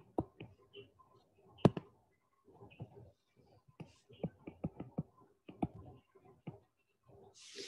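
Stylus tapping and scratching on a tablet screen during handwriting: a string of light, irregular clicks, one louder near two seconds in, with a short hiss at the very end.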